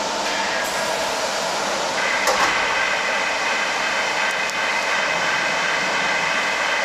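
Medium-frequency induction heating furnace installation running with its power on: a steady mechanical hiss and hum carrying several steady high tones that grow stronger about two seconds in, with a brief click just after.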